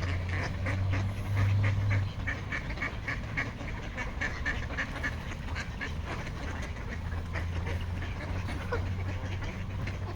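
A flock of ducks and geese calling, mostly quick runs of quacks, busiest in the first half, over a steady low rumble.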